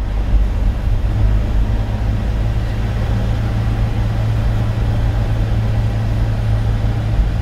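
Steady engine drone and road noise inside the cab of a Kia manual-transmission truck cruising in fourth gear at around 45–50 km/h.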